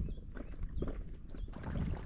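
Paddling an inflatable canoe: a few short paddle splashes and water lapping, over a low rumble of wind on the microphone.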